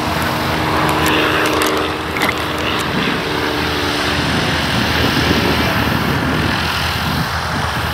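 Single-engine XtremeAir XA-42 aerobatic plane, its propeller engine running steadily with a drone. About four seconds in the steady tones give way to a rougher sound as the plane comes in low over the runway.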